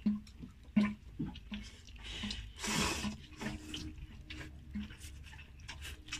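Wooden chopsticks stirring and lifting noodles in a paper bowl of broth: soft wet clicks and small splashes, with one longer rushing sound about three seconds in.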